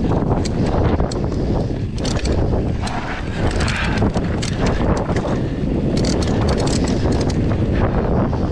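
Mountain bike descending a dirt trail at speed: wind rushing over the camera microphone and tyres rumbling over dirt and leaves, with rapid rattles and clicks from the bike over bumps.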